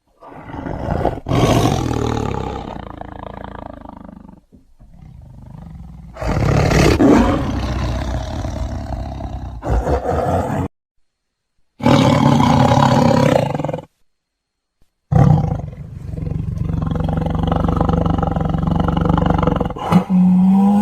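A run of separate recordings of large carnivores roaring and growling, each cut off suddenly with brief silences between them.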